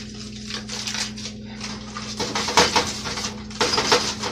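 Kitchen clatter of dishes and utensils being handled: a run of knocks and scrapes starting about halfway through, over a steady low hum.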